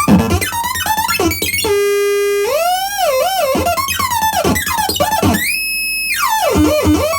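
Electronic music played live on hardware synths: a synth lead holds one note, then swoops up and down in pitch bends, over a steady low drum beat.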